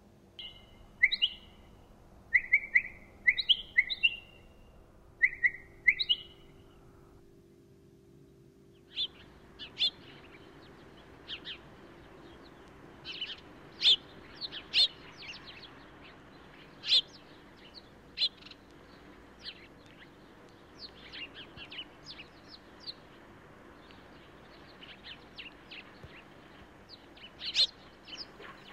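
Small birds chirping. First come groups of short chirps that slide downward in pitch. After a brief gap, a busier run of short, sharp chirps follows, spaced unevenly.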